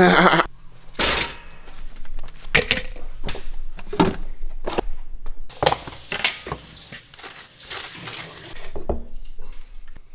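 Dishes and cutlery knocking and clinking in a string of irregular sharp hits, loudest near the start.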